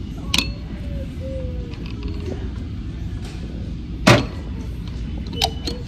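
Sharp clicks and knocks of objects being handled over a steady low store background hum, the loudest knock about four seconds in. A faint wavering squeak runs through the first couple of seconds.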